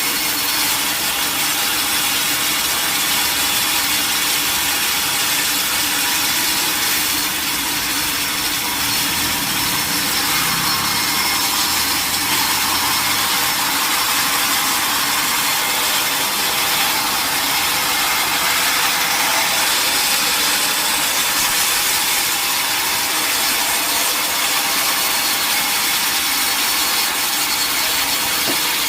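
Sawmill saw cutting steadily through a mahogany log, the blade giving a continuous high hiss in the wood with the machine running underneath.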